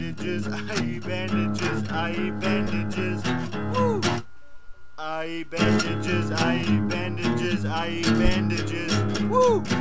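Acoustic guitar strumming chords in a song, breaking off for about a second near the middle and then starting again.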